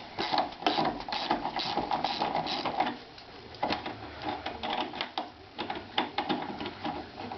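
Ratcheting socket wrench clicking about three times a second as it undoes the 10 mm nut on a washing machine's shock absorber mount, with the clicks thinning out and going quieter about three seconds in.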